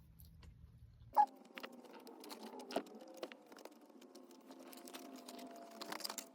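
Soft, scattered clicks and smacks of someone chewing a cheeseburger, with one sharper click about a second in.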